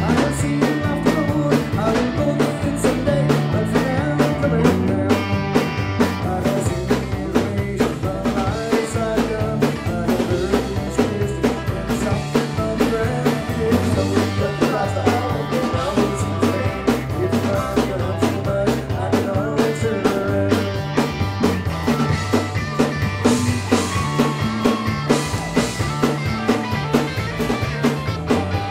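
Live rock trio playing a song on electric guitar, bass guitar and drum kit, with a stepping bass line under steady drum beats.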